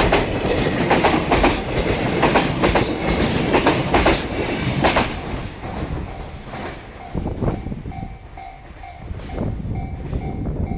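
Wheels of a JR Freight container train (Koki flatcars) clacking hard over rail joints as the wagons pass, the rhythmic clacks thinning out and fading about halfway as the end of the train goes by. From about seven seconds in, a level-crossing alarm's repeating electronic tone is heard.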